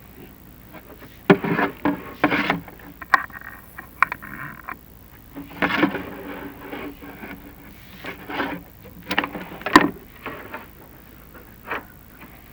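Chimney inspection camera and its push rods scraping and knocking against the flue liner as they are fed up the flue, in irregular bursts with a few sharp knocks and some squeaky rubbing.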